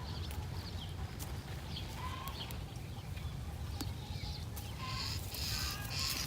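Chickens clucking with short calls repeating every second or so, over a steady low rumble; near the end a brief louder scratchy, rustling noise.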